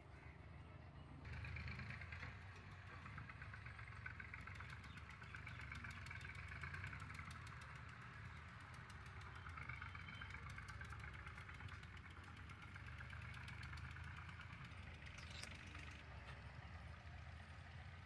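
A faint engine running steadily at a distance, its low hum even, growing a little fuller about a second in.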